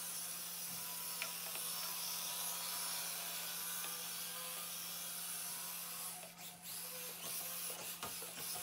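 Axial SCX-24 micro rock crawler's small electric motor and gear train whirring steadily as it drives across carpet, easing off briefly about six seconds in.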